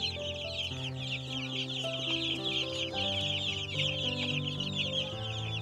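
A crowd of three-week-old Dominant CZ chicks peeping constantly, many high chirps overlapping, over soft background music.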